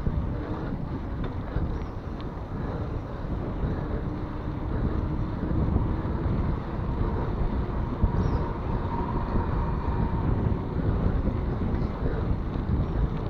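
Wind buffeting the microphone of a handlebar camera on a moving mountain bike, a steady low rumble that swells and dips, mixed with tyre noise on asphalt.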